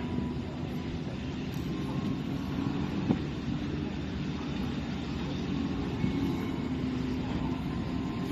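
A boat's engine running steadily, a low drone over a noisy haze, with a single sharp knock about three seconds in.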